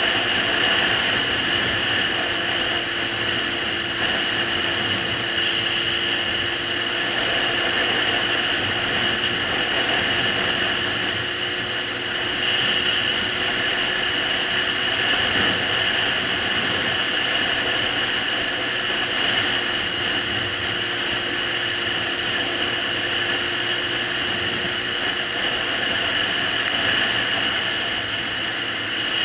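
A Suzuki GSR750's inline-four engine running at a steady cruise with heavy wind rush over the camera. The pitch holds steady throughout, with no gear changes or throttle blips.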